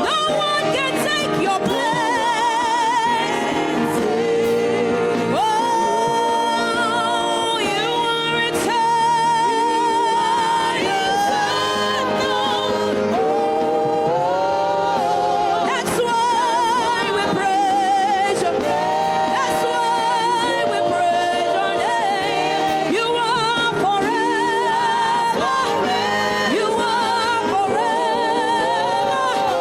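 Gospel worship music: voices singing a melody with heavy vibrato over a steady instrumental backing, without pause.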